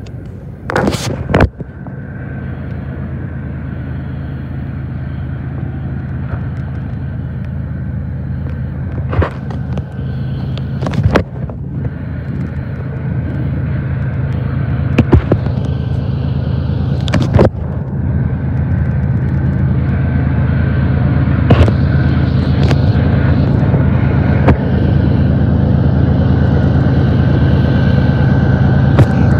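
Diesel locomotives at the head of an approaching freight train, a steady low engine drone that grows gradually louder as they near, the engines working hard under dark exhaust. Several sharp clicks stand out above the drone.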